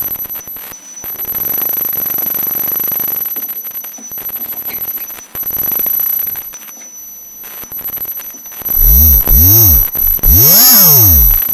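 Electromagnetic interference from the Rockwheel GT16 V3 electric unicycle's controller board, picked up by a microphone taped onto the board while the wheel is ridden. First come steady high-pitched whines over a hiss. From about nine seconds in, loud tones sweep up and down repeatedly as the motor speeds up and slows.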